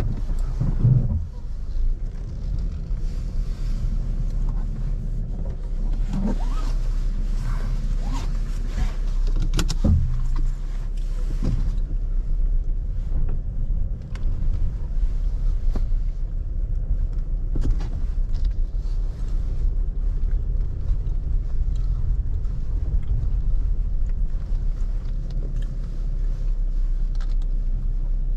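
Road vehicle driving: a steady low rumble of engine and road noise, with a few brief knocks and rattles in the first ten seconds.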